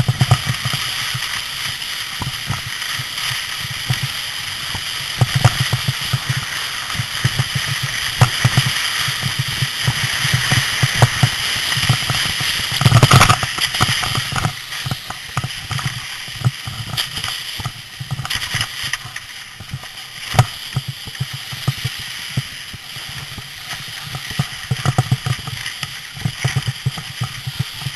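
Wind buffeting a handheld camera's microphone, a steady rushing hiss with low irregular rumbles. Scattered knocks of the camera being handled, loudest about halfway through.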